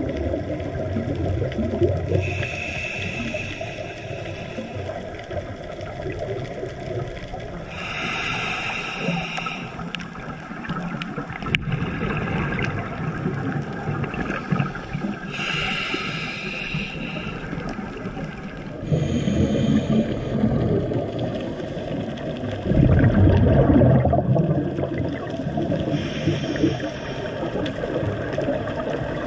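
Underwater sound heard through a camera housing: a steady low, muffled rush of water, with a hiss that returns four times and bouts of low bubbling rumble, the loudest near the end, typical of a scuba diver breathing in through a regulator and exhaling bubbles.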